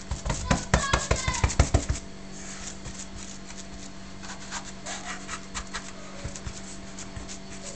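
Hands kneading and patting semolina dough in a wooden bowl. A quick run of thumps and slaps comes over the first two seconds, then softer pats and rubbing.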